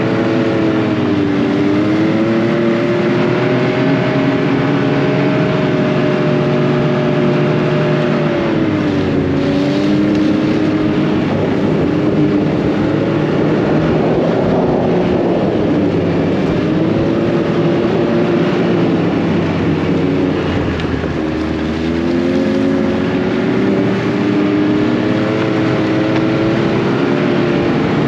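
Snowmobile engine running under way, its pitch rising and falling as the throttle is worked, over a steady rush of noise from the ride. It eases off briefly about two-thirds of the way through, then picks up again.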